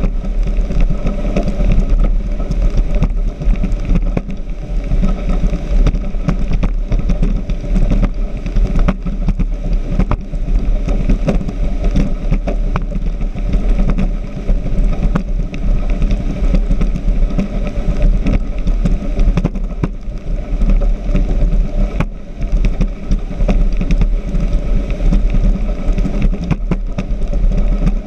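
Speedboat running fast over the water: a steady engine rumble under continuous wind and spray noise, with many short crackles and splashes.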